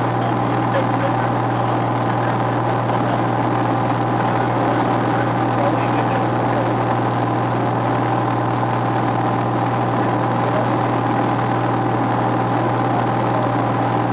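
Piper Malibu Mirage's turbocharged six-cylinder piston engine and propeller droning steadily in flight, a constant low hum with a higher steady tone over it, heard from inside the cockpit.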